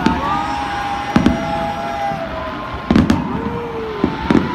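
Fireworks bursting overhead: about six sharp bangs at irregular intervals, two of them in quick succession near the middle, over a steady background hubbub, with long gliding tones between the bangs.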